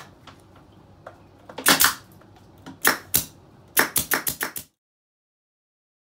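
Staple gun firing staples into the pine boards of a hive box: a double shot nearly two seconds in, two more about a second later, then a quick string of about six. The sound stops abruptly a little before the end.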